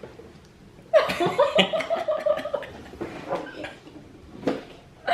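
A person laughing, starting about a second in and dying away, with a few light knocks and clicks of handling.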